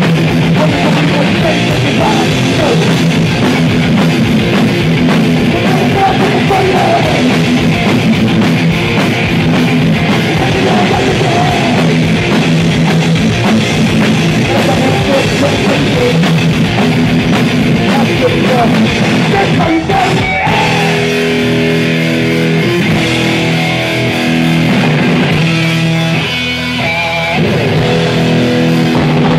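Crossover thrash band playing live at full volume: distorted electric guitars, bass and pounding drums. About twenty seconds in, the riffing gives way to held, ringing chords.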